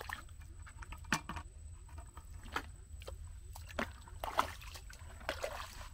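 Footsteps squelching and sucking in soft, wet tidal mud, several irregular steps about a second apart, over a steady low rumble.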